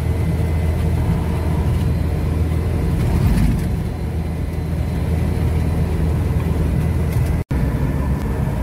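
1983 Daihatsu Taft F50 4WD jeep cruising on a highway, heard from inside the cab: a steady engine drone held at about 2,200–2,500 rpm, under road and wind noise. The sound cuts out for an instant about seven and a half seconds in.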